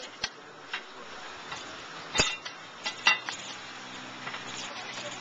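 Metal cooking utensils clinking and clanking against a hot plate, the sound of a burger being worked on a griddle: several separate sharp strikes, the loudest about two seconds in and two more close together about a second later.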